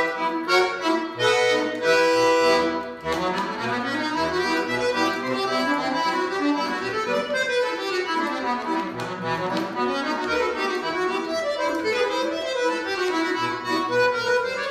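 Solo button accordion (bayan) playing. It opens with loud, short repeated chords for about three seconds, then moves into a softer, flowing passage of melody over low bass notes.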